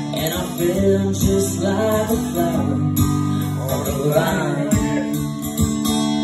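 Live acoustic guitar strummed steadily under a man's singing voice that comes in and out.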